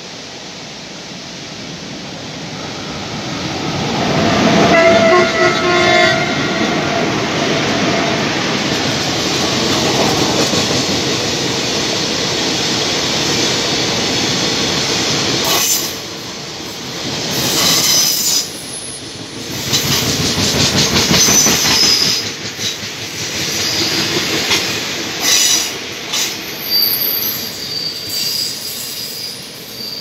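Freight train running close past: about four seconds in a locomotive horn sounds with a held chord, then the long rake of wagons rumbles by with fluttering wheel clatter. Near the end thin, high-pitched wheel squeals ring out. The hiss of a waterfall lies underneath at the start.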